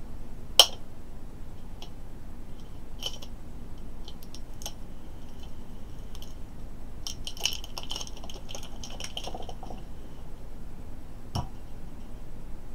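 Plastic packaging being picked at and peeled off small lithium-ion batteries by hand: a sharp click about half a second in, then scattered light clicks and clinks and a few spells of crinkling, the longest a couple of seconds past the middle.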